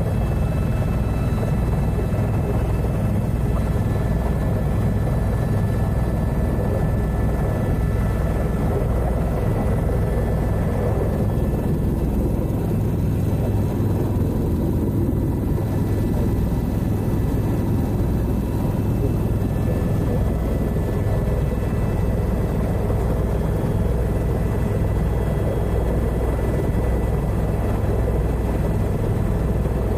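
A turbine tour helicopter's rotor and engine running steadily, heard from inside the cabin while it hover-taxis just above the apron. A low rotor beat sits under a thin turbine whine.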